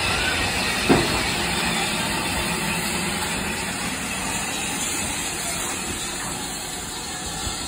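BR Standard Class 4MT steam locomotive hissing steam as it moves slowly along the platform, the hiss fading gradually as it draws away. A single knock about a second in.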